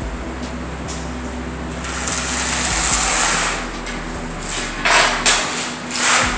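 Steel trowel scraping thinset mortar across a concrete floor, mixed with the rustle of a sheet of plastic tile-underlayment membrane being unrolled: a long rasping swell, then a few short scraping strokes near the end, over a steady low hum.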